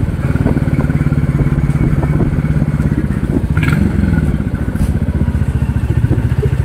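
Motorcycle engine running steadily with a fast, even low beat as the bike climbs a slope, with a couple of brief clicks a little past the middle.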